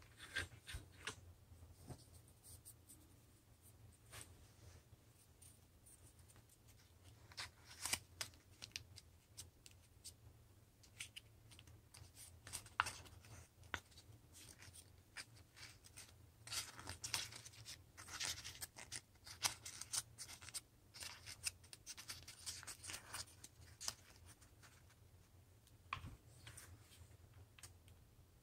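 Construction paper being folded and pressed by hand, faintly rustling and crinkling in irregular bursts with a few sharp clicks, over a steady low hum.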